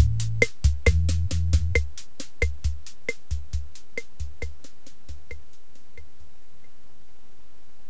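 Background electronic music with a steady, quick drum-machine beat and a bass line. The bass drops out about two seconds in, and the beat fades away over the next few seconds.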